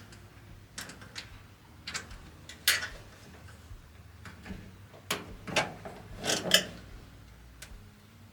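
Scattered clicks, taps and short scrapes of hard parts being handled and worked at while a clothes dryer is cleaned, the sharpest about a third of the way in and a cluster near the end.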